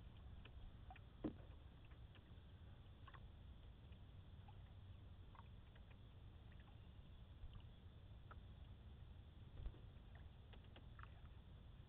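Faint sounds of a canoe being paddled on calm water: a low steady rumble with small scattered drips and ticks. A soft knock comes about a second in and another later on.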